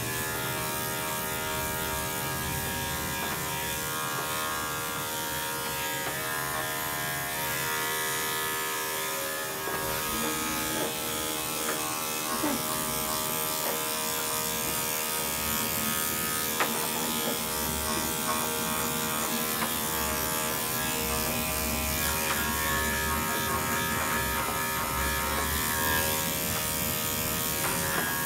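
Electric dog-grooming clippers running steadily with a constant motor buzz as they shear the dog's coat. A low bass thumping sits underneath, coming from outside the grooming room.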